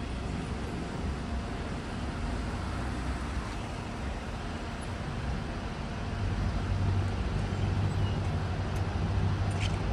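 A minivan driving across a railroad crossing past the microphone: steady road and engine noise that gets louder with a low rumble about six seconds in.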